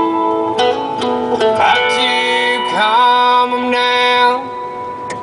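Country song played as background music: plucked and strummed guitars with held notes, some sliding up in pitch, and no words sung.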